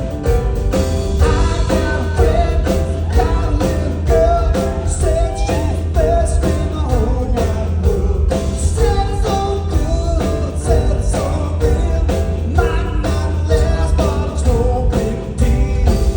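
Rock band playing live, with a singer's vocal over electric guitars, bass and drums keeping a steady beat, heard through an audience recording.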